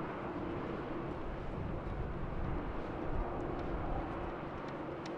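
Jet airliner's engines running at a steady level, with a low hum, as the aircraft moves on the ground. Wind buffets the microphone with an uneven low rumble.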